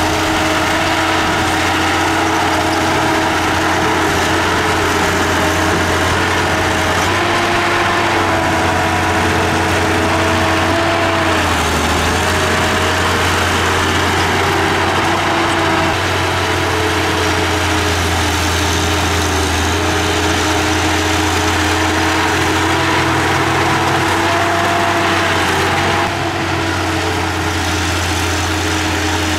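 Komatsu D31P bulldozer's diesel engine running steadily under load while pushing dirt, its pitch dipping and rising a little now and then.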